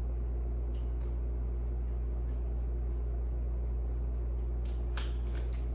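Tarot cards being shuffled and handled, with a few faint clicks and then a quick cluster of sharp card snaps near the end, over a steady low hum.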